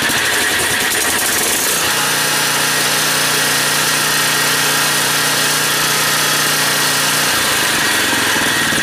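Generac 4000XL generator engine running from low idle as an electric hot-air gun is switched on as a load: the engine note changes as the load hits, then about two seconds in settles into a steady run, and it shifts again near the end. The idle control is set so low that the engine only barely picks back up to working speed under load. A steady blower hiss runs over the engine.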